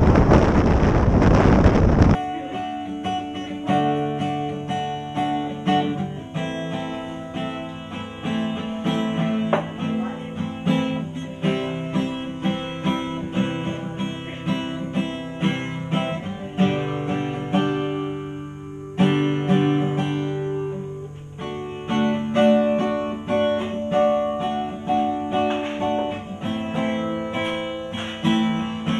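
Wind noise on the microphone of a moving motorcycle for about two seconds, cutting off suddenly. Then an acoustic guitar is played by hand, plucked notes and chords in a steady rhythm.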